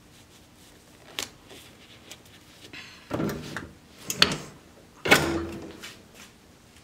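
Vevor hat heat press being clamped shut over a hat: clunks and rattles as the metal upper platen is swung down, then a loud clunk about five seconds in, with a short metallic ring, as the handle locks the press closed.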